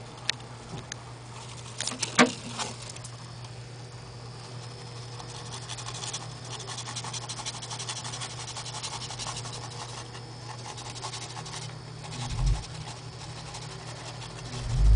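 Light scratching and pattering of small animal claws, with a few sharp clicks about two seconds in and dull bumps near the end, over a steady low hum.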